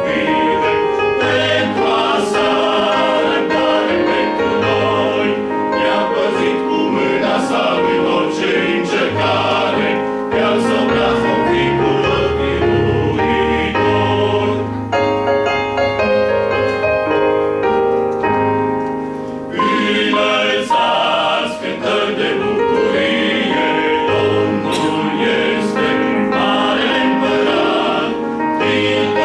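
Men's choir singing a Romanian hymn in harmony, with a softer, thinner passage about halfway through before the full choir returns.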